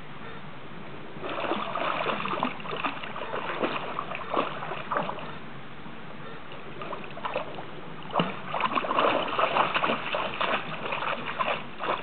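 Dog splashing in shallow stream water: two spells of quick, irregular splashes, one starting about a second in and the other about eight seconds in, with a quieter stretch between them.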